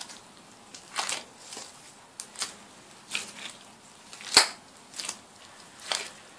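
Hands in thin plastic gloves pulling portions off a soft yeast dough: a string of short crinkles and soft tearing sounds, about ten in all, with one sharper tap on the countertop about four seconds in.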